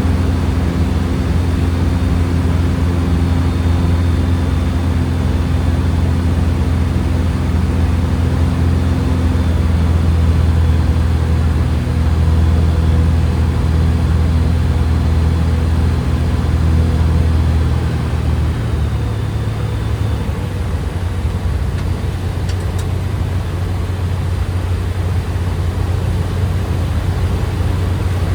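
Skyranger Swift microlight's engine and propeller running steadily in flight on final approach, over a steady rush of noise. About two-thirds of the way through, the engine note softens and drops a little in level.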